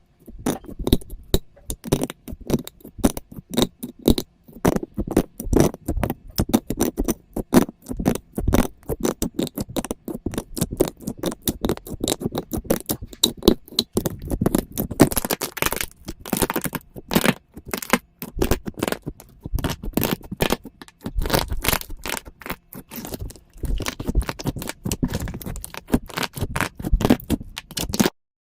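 Slime being pressed, poked and stretched by hand, making a dense, irregular run of sticky clicks, pops and crackles.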